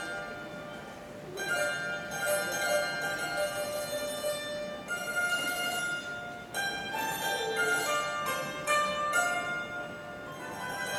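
Cantonese opera accompaniment band playing an instrumental interlude: a melody of held notes, changing every second or two, with no singing.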